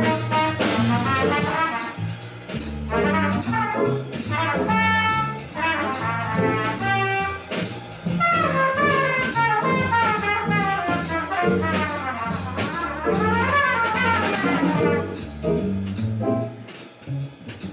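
Live small jazz band: a trumpet plays fast solo lines over upright bass, a Nord Electro keyboard and a drum kit. The trumpet drops out about fifteen seconds in, leaving the keyboard, bass and drums.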